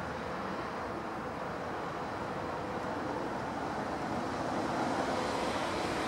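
Steady background road-traffic noise with no bird calls, growing slightly louder near the end.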